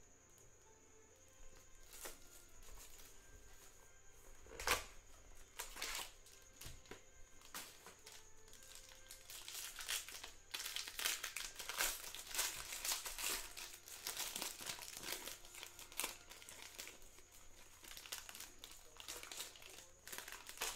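Wrapping on a trading-card box and a silver foil card pack being torn and crinkled by hand: a few separate crackles at first, then, about halfway through, dense continuous crinkling of the foil wrapper.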